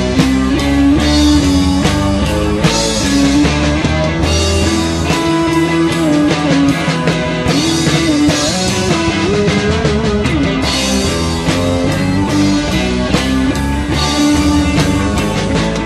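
Live rock band playing an instrumental passage: electric guitar bending notes over bass and drum kit.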